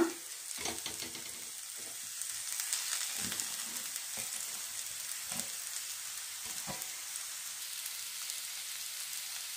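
Onions and tempering sizzling in oil in a kadai, a steady hiss, with a few soft knocks and scrapes as mashed boiled potato is tipped and scraped from a metal bowl into the pan.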